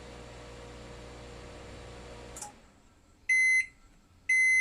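Microwave oven humming steadily as it runs, then shutting off with a click about two seconds in. Its beeper then sounds twice, short high beeps about a second apart.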